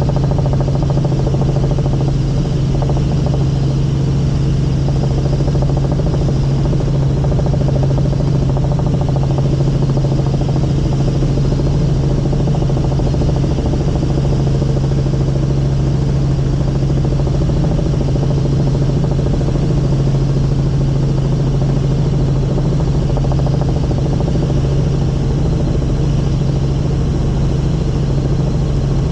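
Helicopter engine and rotors running in steady flight, heard from inside the cabin as a loud, constant drone with a strong low hum.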